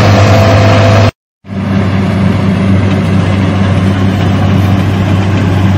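Kubota combine harvester's diesel engine running steadily under load while harvesting rice, a constant low hum with a higher whine from the threshing machinery. The sound drops out completely for a moment about a second in, then the engine hum resumes slightly quieter.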